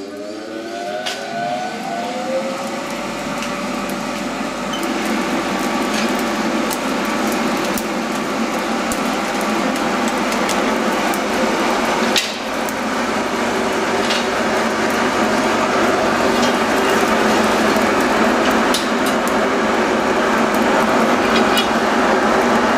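An electric forge blower spins up, its whine rising and then holding steady, and blows air through a coal forge fire with a steady rush. Scattered crackles and pops come from the coals, with one sharp knock about halfway through. The sound slowly grows louder as the fire builds.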